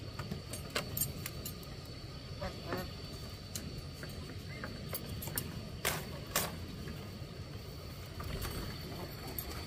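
Split bamboo strips rubbing and clicking as they are woven by hand into a cage, with several sharp clicks, the two loudest about six seconds in. A duck quacks briefly about two and a half seconds in.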